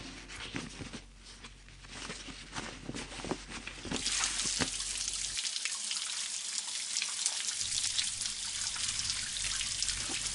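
Water running steadily from a tap into a sink and over hands being rubbed and washed, starting about four seconds in. Before that there are soft rustles and light knocks of handling.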